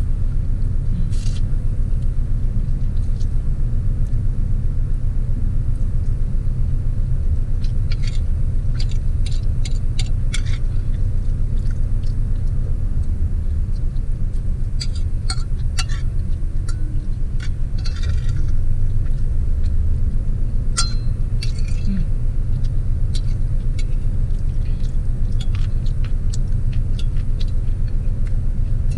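Car engine idling, heard inside the cabin as a steady low rumble, with scattered small clicks and clinks of a metal fork against a ceramic plate while eating.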